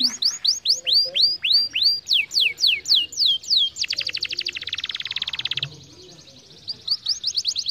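Domestic canary singing: a tour of swooping whistled notes, about four a second, then a very fast trill in the middle. After a short pause, rapid notes start again near the end.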